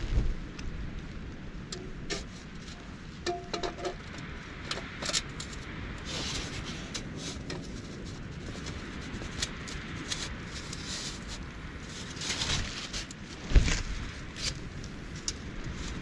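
Scattered clicks, taps and rustles of things being handled, over a steady background hiss, with one sharp loud knock near the end.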